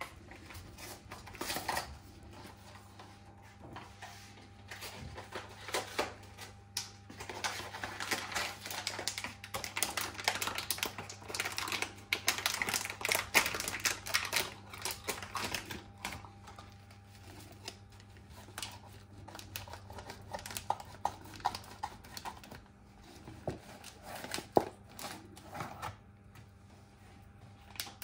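Flour being put into a mixing bowl for tempura batter: rapid light clicks and taps, thickest through the middle and thinning out toward the end.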